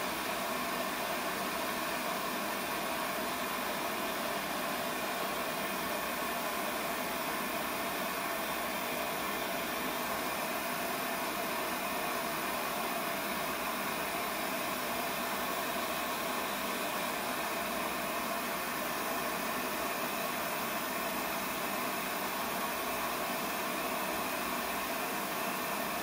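Roppet concentrated-flame propane lampworking burner running with a steady, even hiss.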